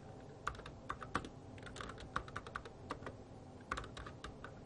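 Typing on a PERQ workstation keyboard: irregular key clicks begin about half a second in, stop briefly a little past the middle, then resume. A steady low hum runs underneath.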